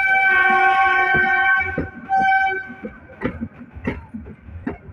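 Meter-gauge train's locomotive horn: one long blast of nearly two seconds, then a short second blast. After it come the clicks of wheels over rail joints as the train rolls on.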